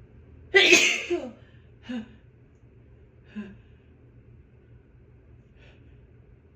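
A woman's big sneeze about half a second in, loud and sudden, followed by two shorter, much quieter sounds a second or so apart.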